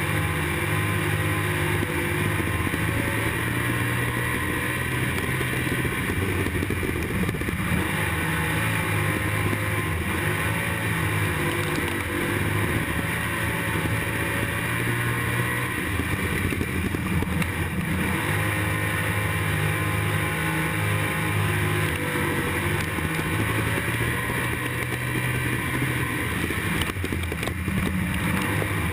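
IMCA stock car's V8 engine running hard at racing speed, heard from inside the cockpit, its pitch rising and falling as the throttle comes on and off.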